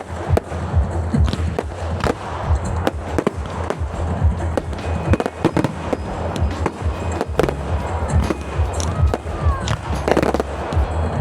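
Fireworks display going off: many bangs and crackles in rapid, uneven succession, over background music with a steady bass.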